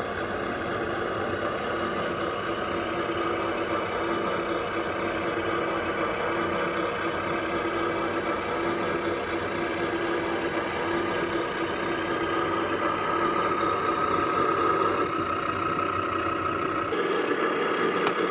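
Simulated diesel engine idle played through the sound module of a converted Bruder D11 RC bulldozer, a steady looping rumble that changes in tone near the end.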